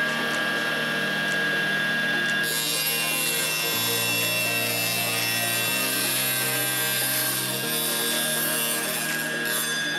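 Proxxon mini table saw running with a steady motor whine; from about two seconds in until near the end, its blade cuts lengthwise through a thin strip of wood, adding a rough, hissing rasp over the motor.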